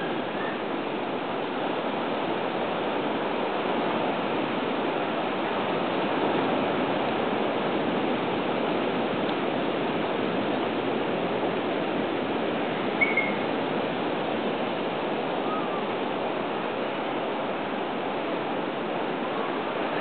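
Steady rushing of water, with one short high chirp about two-thirds of the way through.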